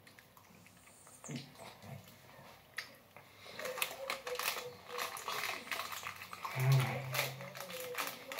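A person eating a sour gummy candy. After a few faint seconds come a run of small clicks and rustles from chewing and from crumpling a paper napkin. A short low groan about two-thirds of the way through is the loudest moment.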